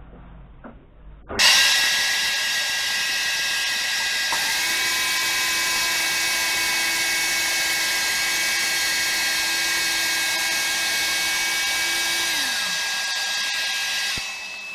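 Electric power tool starting abruptly and running steadily with a high whine while making a cut, then its pitch falls as it winds down near the end.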